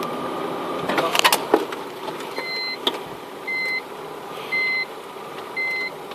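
Nissan Patrol's engine running, heard from inside the cab, with a few knocks about a second in. Then its reversing warning starts beeping, one short beep about once a second, as the vehicle backs away.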